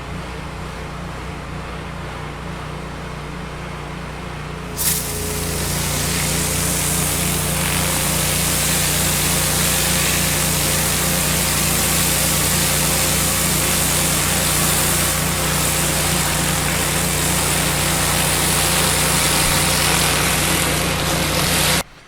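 Pressure washer engine running steadily. About five seconds in, the high-pressure water spray suddenly starts with a loud, steady hiss of the jet on the surface, and it keeps going until a sudden cut just before the end.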